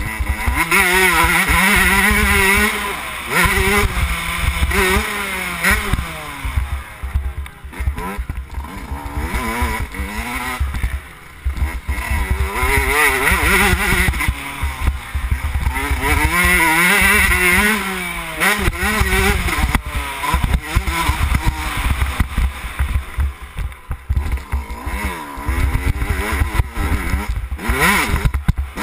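2011 Yamaha YZ125's two-stroke single-cylinder engine under riding load, revving up and down over and over as the rider works the throttle and gears, with brief lulls off the throttle about a third of the way in and again near the end. Wind rumbles on the onboard microphone.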